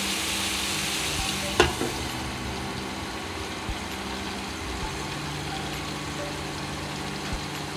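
Chicken and onions sizzling in a frying pan. About a second and a half in, a glass lid clinks down onto the pan, and the sizzle goes duller after it.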